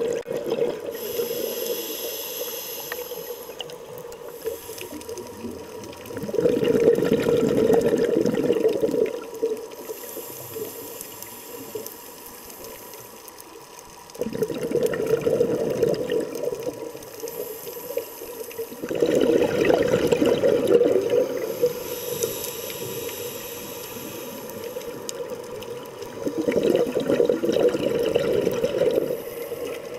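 Scuba diver breathing through a regulator, heard underwater: bubbling exhalations come about every six seconds, with a hissing inhale between them.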